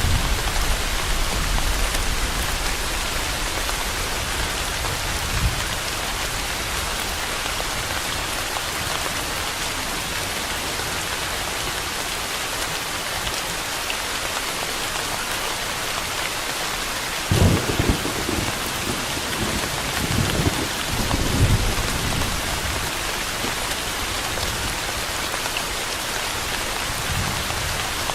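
Steady rain hissing, with thunder: a low rumble dies away over the first few seconds, and another peal rumbles from a little past halfway, swelling again a few seconds later.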